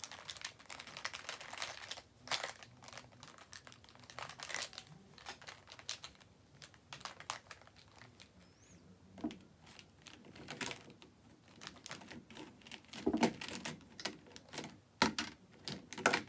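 Plastic felt-tip markers clicking and rattling against each other as they are picked through and sorted by hand, with rustling of sweatshirt fabric. The clicks come irregularly, in small clusters.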